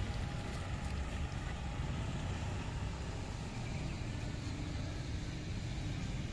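Steady low rumble of motor vehicle engines running nearby.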